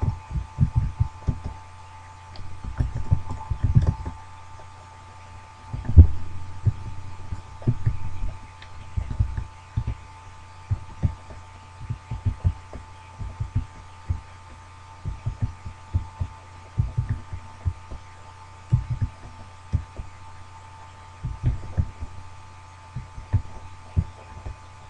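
Irregular soft low thuds, at times several a second, over a steady hum.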